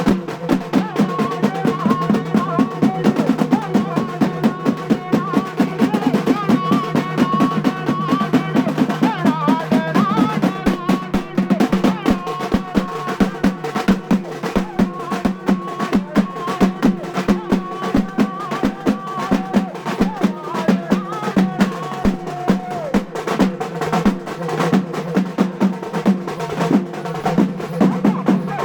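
Music of fast, continuous drumming, dense rapid strokes, over a steady drone with a wavering melodic line above it.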